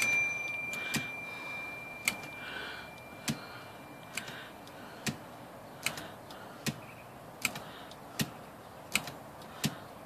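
IBM Selectric III typewriter tabbing its carrier along, its tab key worked over and over: a sharp mechanical clack about once a second, coming a little faster toward the end. A high ringing tone fades away over the first few seconds.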